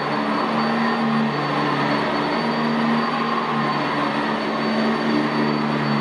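Sanitaire SC679J commercial upright vacuum cleaner running on carpet: a steady motor drone over the whir of the brush roll, its pitch shifting up and down every second or so as the vacuum is pushed and pulled.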